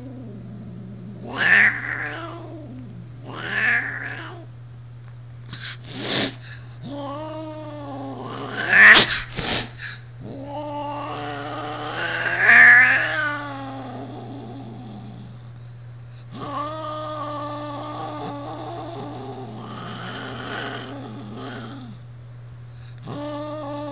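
A 20-year-old black-and-white cat yowling and growling in anger at another cat: a string of wavering yowls, the first few short and rising and falling, the later ones drawn out for several seconds. Two short sharp hisses cut in about six and nine seconds in.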